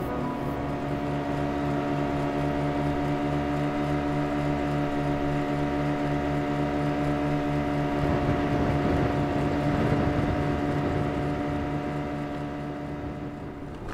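An engine running steadily at an even speed, its sound easing off a little near the end.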